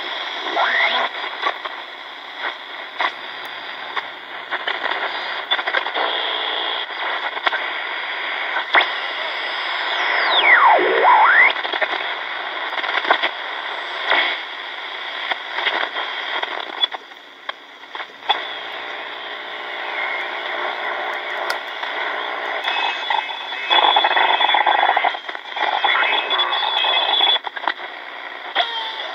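Hitachi Hi-Phonic WH-888R portable radio tuned across the shortwave band: steady static hiss with crackles and fragments of signals. About ten seconds in, a whistling tone sweeps steeply down and back up as the dial passes a station.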